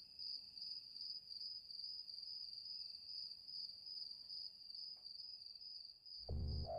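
Faint, steady, high-pitched insect trill. Near the end a louder low sound cuts in abruptly.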